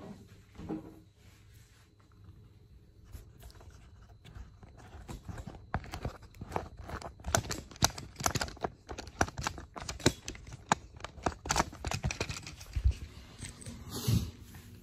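Handling noise close to the microphone: irregular clicks, knocks and rustles, sparse at first and coming thick and fast from about six seconds in until just before the end.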